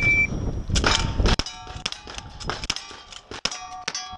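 A shot timer's short high beep, then a rapid string of gunshots from a single-action revolver and a lever-action rifle, with steel targets ringing after each hit.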